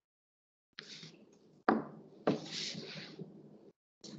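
Two knocks half a second apart with rustling, picked up by a video-call participant's microphone; the sound cuts in and out abruptly between stretches of dead silence.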